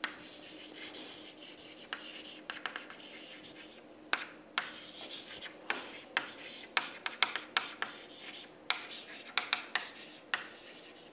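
Chalk writing on a blackboard: scratchy strokes broken by many short sharp taps as the chalk meets the board for each letter.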